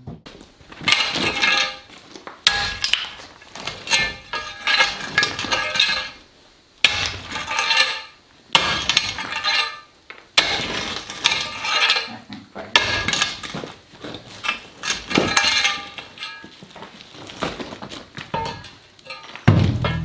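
A shovel scooping and scraping through broken concrete rubble, with chunks clattering and clinking against each other, in repeated bursts every second or two with short pauses between.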